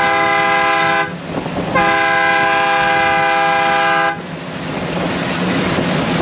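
Two long blasts of a horn sounding several tones together, the first ending about a second in and the second running from about two seconds to four seconds in, over the steady running of a JCB Fastrac tractor working a hay merger. After the second blast only the tractor and merger noise remain.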